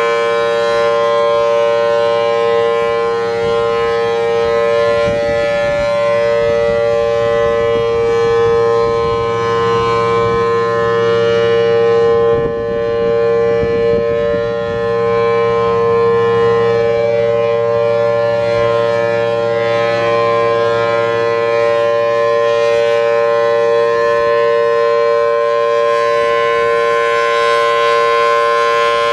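Federal Signal Thunderbolt 1000T blower-fed mechanical siren with a 4/5-port rotor, sounding a steady full-alert tone: two pitches held a major third apart, loud and unbroken, with slight swells and dips in loudness.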